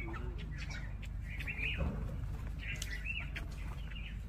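Small songbirds chirping: short chirps in clusters, coming a few times over a steady low background rumble.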